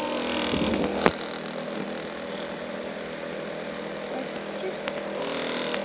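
A steady mechanical hum, like a small motor running, with one sharp click about a second in.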